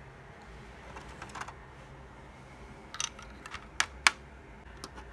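Light plastic clicks and taps of Lego pieces being handled, a few scattered small ones and two sharp louder clicks close together a little before the end.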